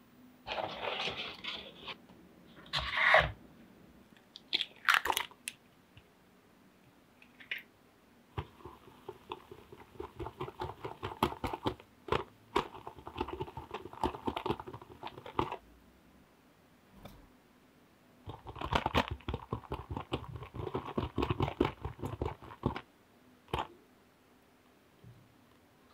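Whisk beating creamed butter, sugar and egg in a glass bowl: fast scraping strokes in two long runs with a short pause between them. A few separate louder knocks and scrapes come before the runs.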